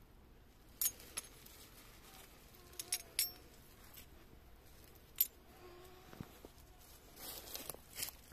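Old silver coins clinking against one another in a cupped hand: a few sharp metallic chinks in the first seconds and one more a little past the middle. Near the end comes a short rustle, as of a hand moving through dry leaf litter and soil.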